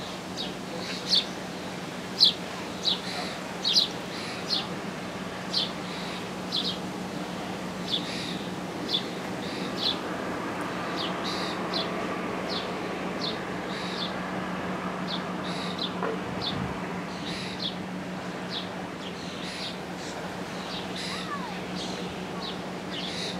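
A bird repeating a short, high, down-slurred chirp about once a second, louder in the first half, over a steady low hum.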